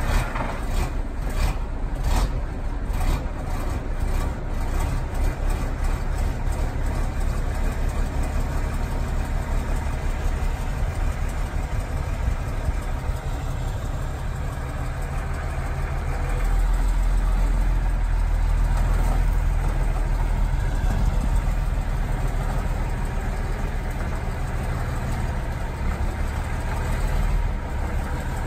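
Diesel engine idling steadily, with a few sharp clicks in the first seconds. It runs deeper and louder from a little past halfway until near the end.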